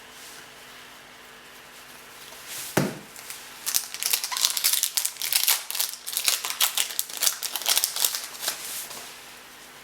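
Wrapper of a trading-card pack being torn open and crinkled: one sharp tear about three seconds in, then several seconds of dense crinkling and rustling as it is pulled apart.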